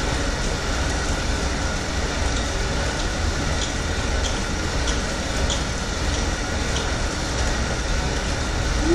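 Air bike's fan wheel whirring steadily under easy pedaling at about 44–45 RPM, with faint regular ticks about three every two seconds.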